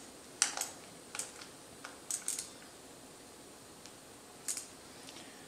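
Scattered light clicks and taps, about half a dozen, mostly in the first couple of seconds with one more near the end, as a motorcycle's hydraulic clutch master cylinder and its clamp are handled and set against the handlebar.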